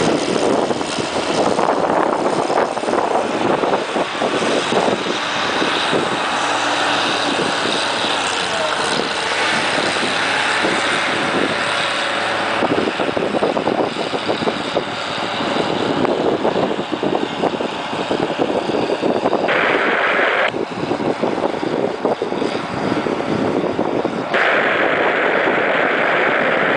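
Helicopter in flight heard from on board: steady rotor and engine noise with a dense, even roar. A steady high tone sounds briefly about 20 seconds in and again near the end.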